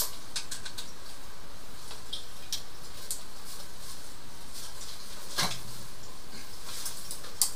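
Scattered light clicks and scrapes of hand work around a toilet over a steady hiss. A sharper click comes about five and a half seconds in and another near the end.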